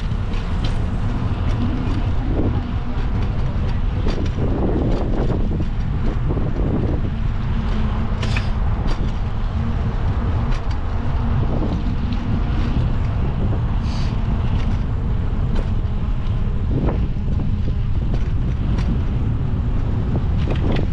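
Wind buffeting the microphone of a moving bicycle, a steady low rumble, with street traffic noise underneath. A few short clicks and hisses come through, two of them standing out about eight and fourteen seconds in.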